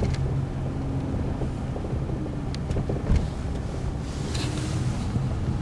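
Steady low rumble of a car's engine and tyres heard from inside the moving car, with a single thump about three seconds in.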